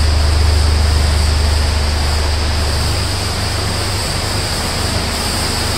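Large dyno cooling fan blowing a steady rush of air with a low hum beneath it; the hum eases a little about three seconds in.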